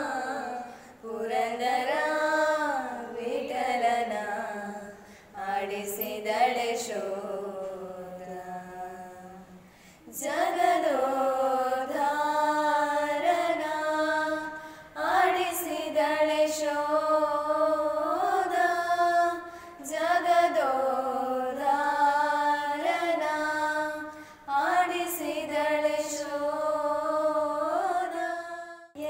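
A group of female voices singing a slow melody in long, drawn-out notes, with no clear words.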